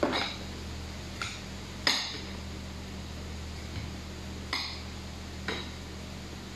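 Five sharp clinks and knocks of kitchen utensils and containers being handled on a counter, each ringing briefly, over a steady low hum.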